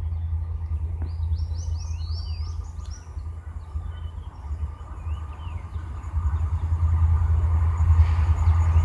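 Birds chirping in short rising and falling notes, mostly in the first few seconds, over a steady low rumble that grows louder toward the end.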